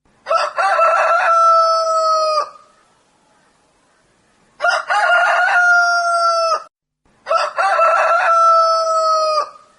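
Rooster crowing three times in a row, each crow about two seconds long: a few choppy notes, then one long held note that drops off at the end.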